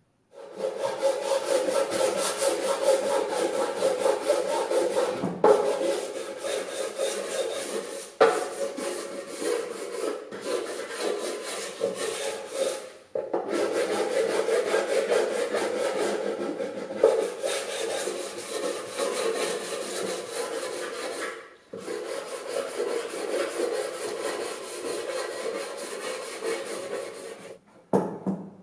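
Abrasive hand work on wood: a wooden piece rubbed and scraped in continuous strokes. The sound comes in several long stretches with brief breaks and stops just before the end.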